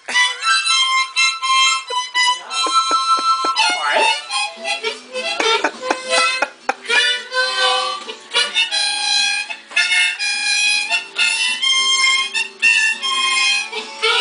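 Harmonica playing a lively tune in short, choppy notes and chords.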